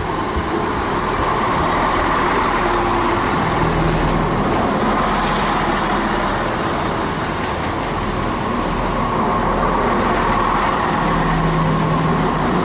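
Two coupled Class 168 diesel multiple units running slowly into the platform: a steady mix of engine hum and wheel noise that swells a little at the start, then holds.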